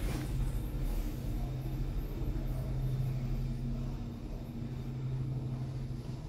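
Passenger lift car descending between floors: a steady low hum and rumble of the car in travel, easing slightly after about four seconds.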